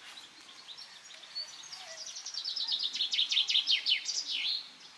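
A songbird singing one phrase of quick, falling high notes that speeds up and ends in a flourish, starting about a second and a half in.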